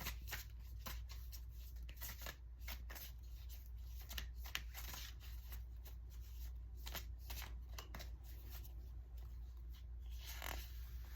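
A tarot deck being shuffled and handled: a run of soft, irregular card flicks and riffles, with a longer brushing rustle near the end, over a low steady hum.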